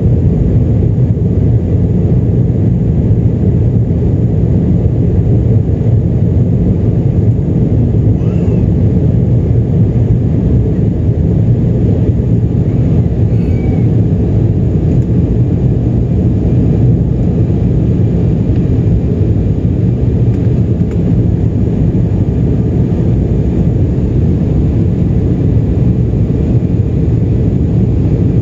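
Steady low rumble inside the cabin of an Embraer 175, from its GE CF34-8E turbofan engines and the airflow over the fuselage during the climb after takeoff.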